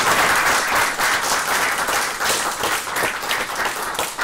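Audience applauding: dense clapping from many hands, thinning slightly near the end.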